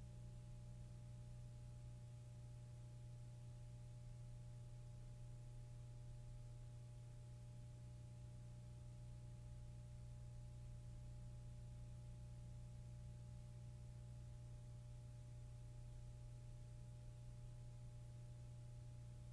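Near silence: only a faint, steady low hum with a couple of thin steady tones above it.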